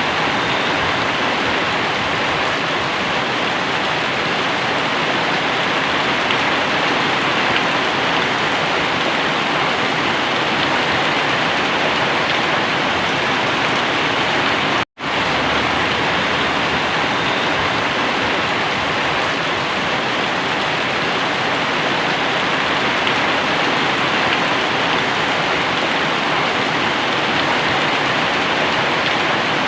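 Very heavy rain pouring down as a steady, dense hiss, cut off for an instant about halfway through.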